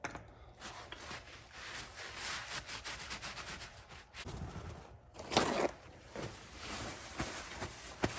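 Hand-working noises from parts on a workbench: a scatter of small clicks and knocks with short scrapes and rustling, the loudest scrape about five and a half seconds in.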